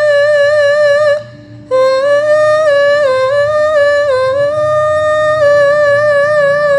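Female Javanese sinden singing long held notes with a steady vibrato through a microphone, breaking off briefly about a second in, then stepping down in pitch before holding again. A fainter lower held tone sounds beneath her voice in the middle.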